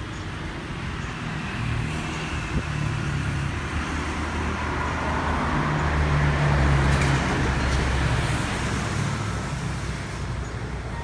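Road vehicle engine and traffic noise, a low rumble that grows louder to a peak about six to seven seconds in and then fades, like a vehicle passing close by.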